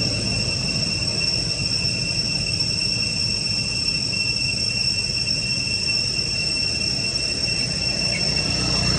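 Cicadas singing in a steady, unbroken high-pitched tone over a low background rumble.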